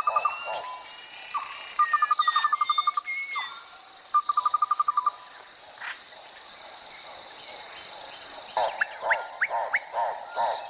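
White storks clattering their bills at the nest: three quick rattles, each under a second, the sound of the greeting display toward a returning partner. Small birds chirp briefly, and a low rhythmic pulsing of a few beats a second starts up near the end.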